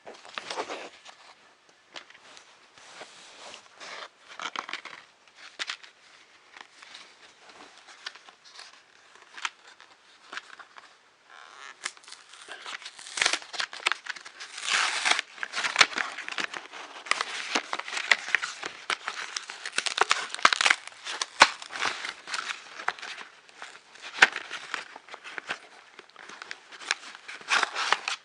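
Packaging being handled and crinkled, with rustles and small clicks. It is sparse at first, then turns denser and louder from about halfway through.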